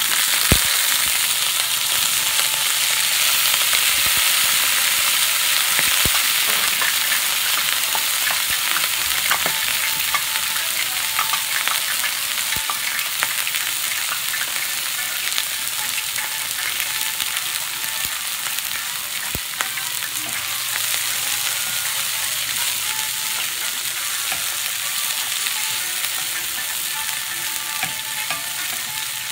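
Water spinach (kangkong) stems sizzling in hot oil and garlic in a metal wok, starting suddenly and loudly as they hit the pan and settling a little over time. A few sharp clicks come through, and a wooden spatula stirs the stems near the end.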